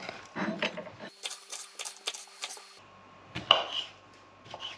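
Kitchen knife chopping bell pepper and pineapple on a wooden cutting board: the blade taps the board in a quick run of strokes, then a few single, louder knocks.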